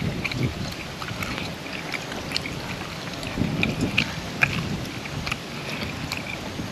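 Close-up eating sounds: someone chewing grilled catfish and papaya salad, with scattered wet mouth clicks.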